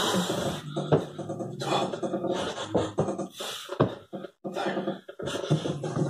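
Electronic music with chopped, stuttering vocal samples over a pitched bass line, cutting out for a moment a little past four seconds in.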